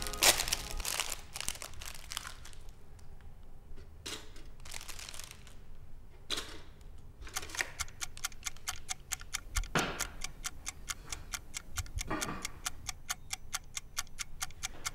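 A few rustling and handling noises, then a rapid, steady mechanical ticking starts about seven seconds in and keeps going, roughly five or six ticks a second.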